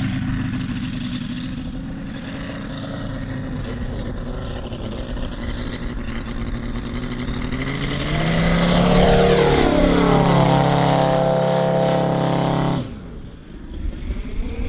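Five-cylinder Valach VM-250 R5 radial engine of a half-scale model biplane running at high power as the plane climbs out and flies past close by; about eight seconds in it grows louder and its pitch slides down as it goes by. Near the end the sound drops suddenly to a fainter, more distant engine.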